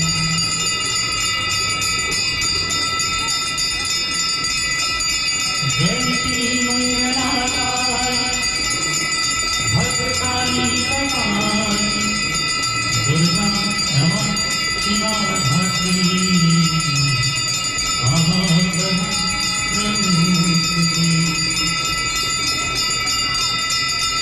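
Many bells ringing without pause for the Hindu aarti ritual. From about six seconds in, a man's voice sings the aarti hymn in long held, gliding notes, phrase after phrase.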